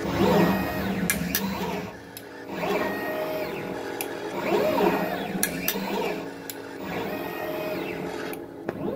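TVM802A desktop pick-and-place machine running: its stepper motors whine up and down in pitch as the placement head moves, in repeated sweeps every couple of seconds, over a steady hum, with a few sharp clicks in between.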